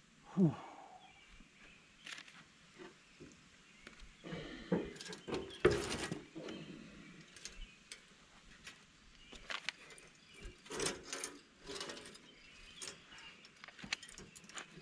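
Irregular metal knocks and scrapes as a heavy radiator for a Cat 955H crawler loader is worked down onto its steel mounting cradle, with the grunts of a man straining under the weight. The loudest clunk comes about six seconds in.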